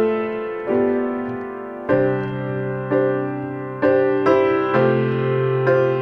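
Piano playing slow chords, a new chord struck about once a second and each fading away before the next.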